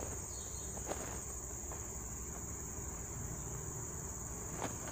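Insects shrilling in a steady, unbroken high-pitched chorus, with a couple of faint clicks about a second in and near the end.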